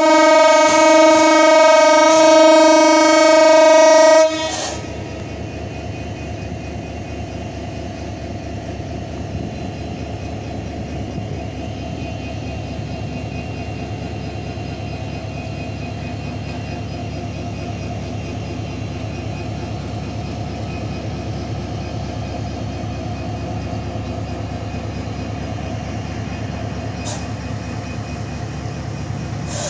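Hyundai Rotem diesel-electric locomotive sounding one long horn blast of about four seconds, which cuts off abruptly. Its diesel engine then runs steadily as it pulls the train slowly past.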